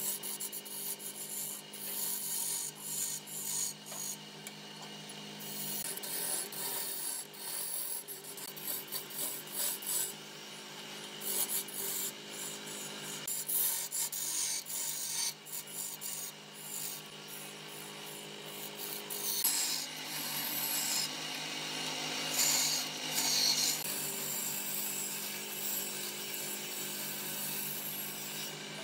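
Large wood lathe running with a steady hum while a hand-held gouge cuts into the spinning wooden blank, a rough scraping, shaving noise that swells and eases as the tool is worked along the wood.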